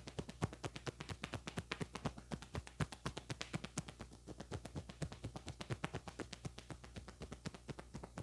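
Hands tapping rapidly and evenly on a head in a percussive head massage, about seven light taps a second.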